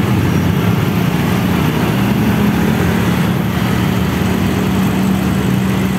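Motorbike and car engines running close by in slow road traffic, with a steady engine drone.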